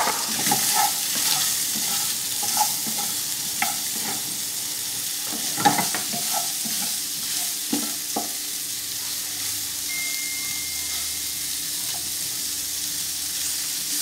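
Sausage sizzling steadily in a frying pan on a gas burner, with a spoon scraping and knocking against the pan as it is stirred. The stirring knocks come often in the first half, with one sharper knock about six seconds in, then thin out while the sizzle carries on.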